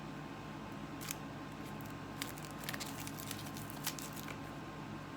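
Small cosmetic packaging being handled: scattered faint clicks and taps over a steady low room hum.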